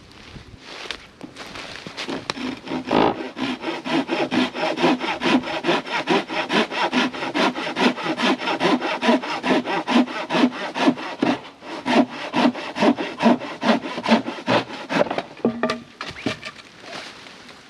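Hand saw cutting through a freshly fallen oak log, with quick, even back-and-forth strokes of about four a second. The sawing starts about a second in and stops shortly before the end.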